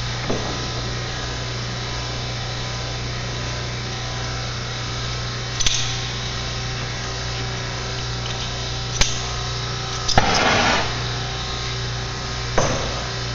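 Brazing torch flame burning with a steady hiss while copper tubing is heated, with a few sharp metallic clicks and a short louder scrape about ten seconds in.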